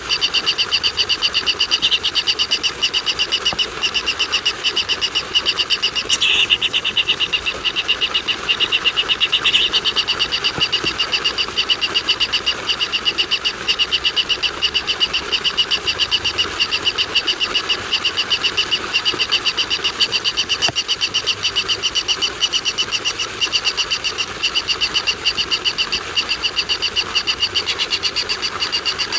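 A steady, rapid pulsing animal call, high-pitched, repeating many times a second without a break, with a couple of brief louder notes over it.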